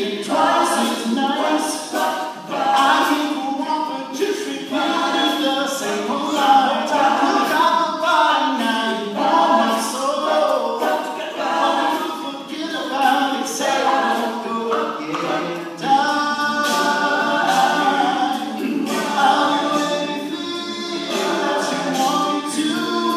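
All-male a cappella group singing a pop song in harmony, the voices amplified through stage microphones.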